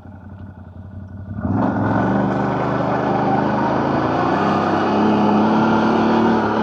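CFMoto CForce 1000 ATV's V-twin engine running low and quiet, then revving up sharply about a second and a half in and running steadily and loudly under throttle.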